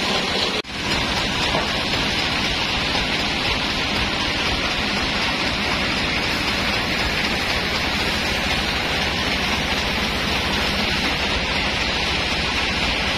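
Band sawmill running steadily, a continuous loud hissing machine din with a fast low pulsing under it. It breaks off for an instant about half a second in.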